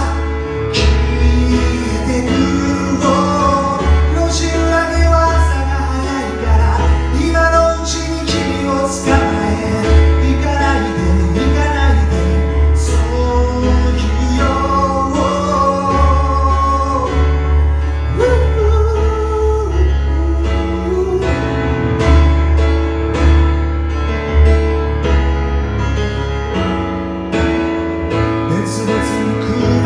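Live solo piano-and-vocal performance: a Roland stage piano played as a ballad with steady low bass notes, and a man singing over it.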